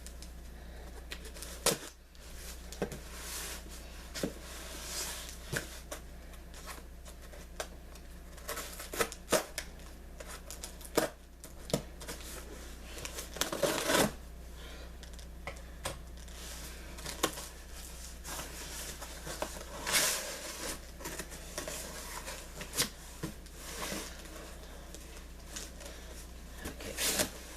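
A cardboard box being opened and its packing material handled: rustling, crinkling and tearing, with scattered clicks and light knocks.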